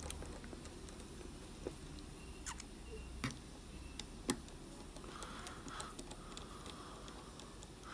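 Small-tip Phillips screwdriver turning out the tiny screws at the bottom of an iPhone 2G: faint ticks and clicks of the bit in the screw heads. There are a few sharper clicks about a second apart in the first half and a light scratching later.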